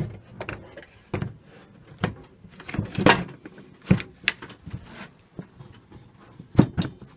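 A router insert plate is handled and set down into its opening in a homemade router table top, making a string of irregular knocks and clunks. The loudest come about three seconds in and again near the end.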